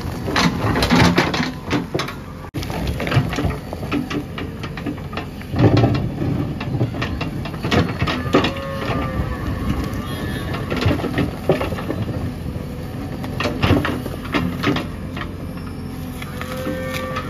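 JCB 3DX backhoe loader's diesel engine running under load while its bucket digs into and shoves brick and roof-tile rubble, with repeated clattering and crashing of bricks and timber. The loudest crash comes a little before the middle.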